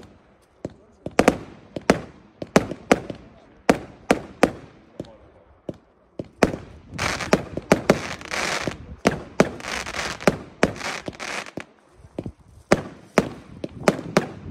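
Consumer fireworks cake (Fregatten Tordenskjold, a 64-shot battery) firing: a run of sharp bangs about twice a second as shots launch and burst. Near the middle there are a few seconds of continuous rushing noise between the bangs.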